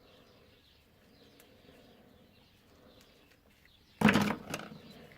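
Faint bird chirps in the background. About four seconds in, a sudden loud clatter fades away in under a second.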